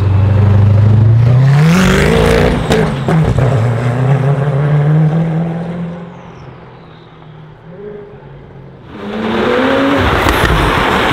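Supercar engine accelerating hard: a loud low engine note climbs steeply about a second and a half in, dips briefly near three seconds as at a gear change, then climbs again while fading into the distance. About nine seconds in, another loud engine note rises as a car accelerates again.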